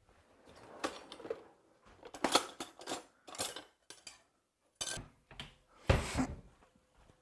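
Dishes and utensils being handled, giving a series of separate clinks and clattering knocks. The loudest come about two and a half seconds in and again about six seconds in.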